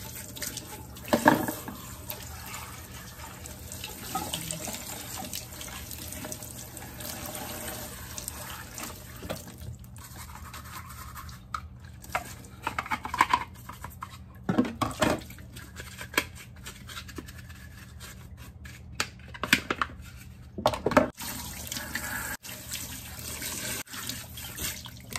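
Kitchen tap running into a stainless steel sink while plastic citrus juicer parts are rinsed under the stream and scrubbed with a bristle brush. Now and then there is a sharp knock as the parts are handled in the sink, most clearly about a second in and several times in the second half.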